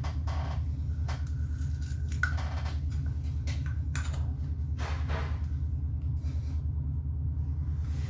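A steady low hum, with scattered light clicks and rustles from hands handling an electrical cable.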